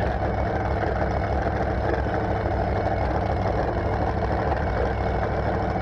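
Supercharged inboard boat engine idling steadily, a low even rumble.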